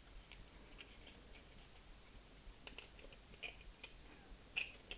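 Faint, scattered clicks and rustles of stiff cardstock being handled: glued box-lid flaps are pressed and held, then folded in.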